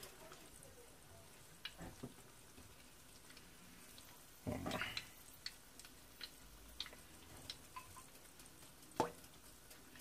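Light kitchen handling sounds as fresh spinach leaves are placed on an egg roll wrapper and the wrapper is folded by hand: scattered soft taps and clicks, a brief rustle about halfway through, and a sharper tap near the end.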